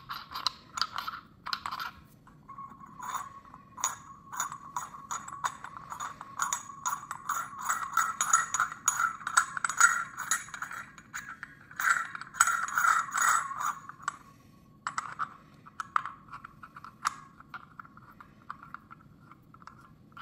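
Hand-held needle coffee distributor clicking, rattling and scraping as its sections are twisted and handled. Rapid clicks run busily through most of the first two thirds, pause briefly, then return more sparsely.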